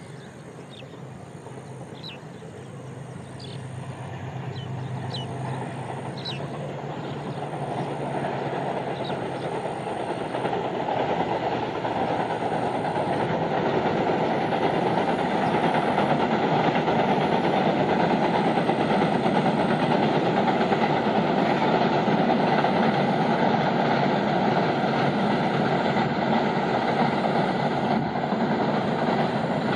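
GE U20 diesel-electric locomotive hauling a passenger train over a steel girder bridge. At first there is a low engine hum, which grows louder over about the first fifteen seconds into a steady rumble of wheels and coaches on the bridge.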